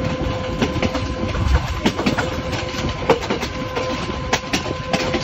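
Passenger train running slowly, heard from an open carriage window: a steady rumble with many irregular clicks and knocks from the wheels and running gear, and a faint steady hum.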